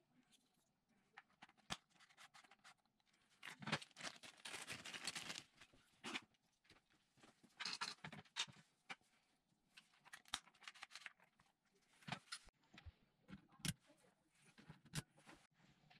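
Faint handling sounds of small plastic parts: a clear plastic parts bag crinkling in two short stretches, and scattered light clicks and taps as plastic trim pieces are handled and set down on a metal work platform.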